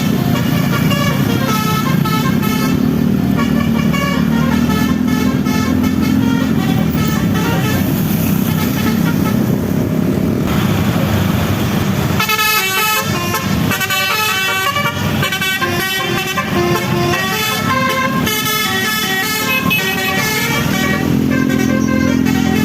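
A bus's multi-tone 'telolet' musical horn playing quick runs of short notes that step up and down in pitch.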